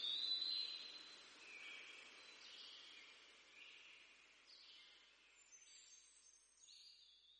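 Faint high-pitched chirps, roughly one a second, at the tail of the slideshow's background soundtrack, dying away to silence.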